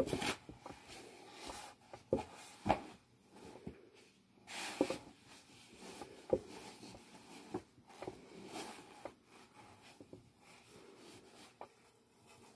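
Sheets of printed paper being handled, lifted and set down: brief rustles of paper with scattered light taps and clicks.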